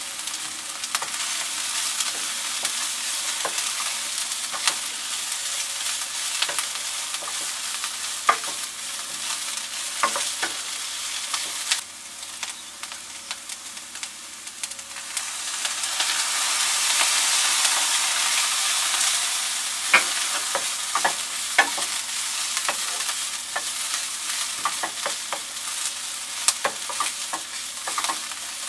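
Carrot and green bell pepper strips sizzling as they sauté in a hot nonstick frying pan, with frequent clicks and scrapes of a wooden spatula stirring them. About halfway through, the sizzle swells louder for a few seconds as a liquid is poured into the pan.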